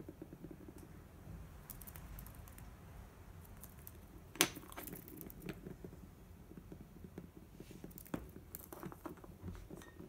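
Faint, scattered taps and clicks of a budgie knocking small plastic toys about on a wooden floor, with one sharper click about four and a half seconds in and a few smaller ones near the end.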